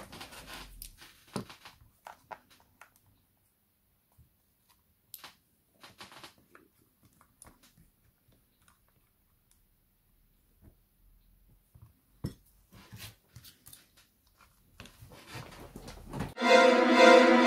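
Sparse faint clicks and small taps, then loud theme music with strings starts near the end.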